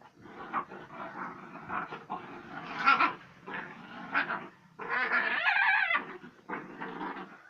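A dog vocalising: a run of short, rough sounds, then a longer pitched call about five seconds in.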